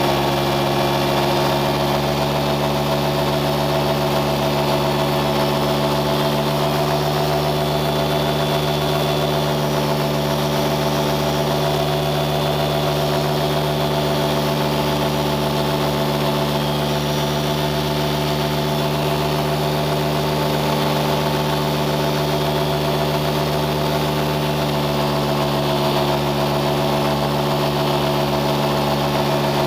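Engine running at a constant speed: a steady, loud hum of one fixed pitch, which shifts slightly about 25 seconds in.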